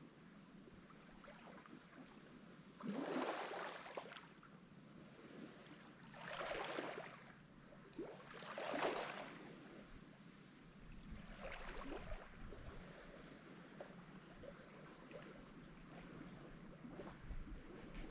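Small Lake Michigan waves washing onto the shore: four separate swashes, about two to three seconds apart, each swelling and falling away over a second or so. Low, steady wind rumble comes in later on.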